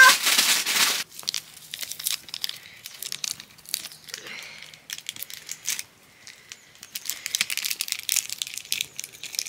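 Crinkling and rustling, a run of small irregular crackles, with a louder burst in the first second.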